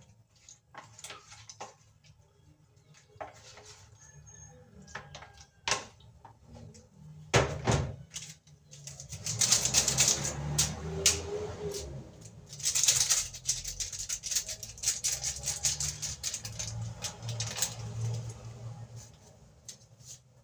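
Kitchen handling noises: scattered clicks and knocks as raw beef kidney in a plastic container is handled and seasoned by hand, with a louder, denser stretch of crackling noise from about nine to thirteen seconds in.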